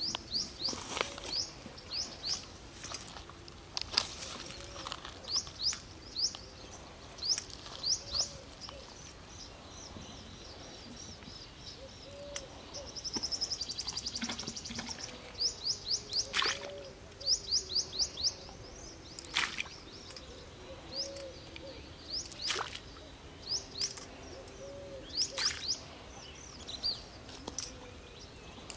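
Birds calling: quick high chirps in short runs of two to five, with a rapid trill about halfway through, over soft low hooting notes repeating every second or two. A few sharp clicks stand out among them.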